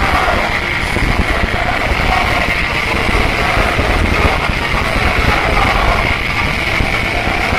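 Live punk rock band playing at full volume, with guitars, bass and drums, recorded on an overloaded audience camera microphone so the music blurs into a dense, distorted wall of noise.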